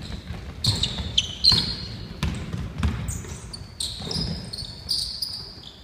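Basketball bouncing on a wooden gym floor in irregular knocks, with short high squeaks of basketball shoes on the court.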